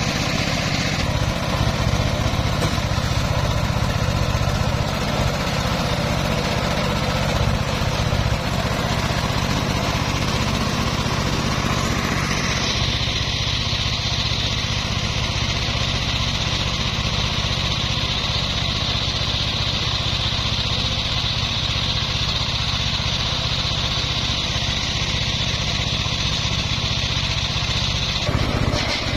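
Engine of a homemade circular sawmill rig running steadily while the saw is not cutting. About twelve seconds in the sound shifts and a steady high whine joins the engine, holding until near the end.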